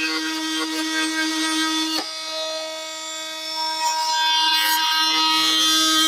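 Oscillating multi-tool running, its freshly resharpened blade buzzing as it plunge-cuts into a wooden beam. There is a sudden break about two seconds in and a quieter stretch after it, then the cutting gets louder again.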